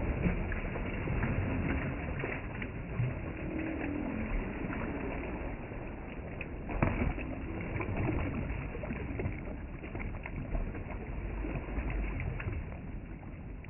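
Gold rocker box being rocked back and forth: water and gravel sloshing and rattling through it, with many small knocks over a steady wash of water.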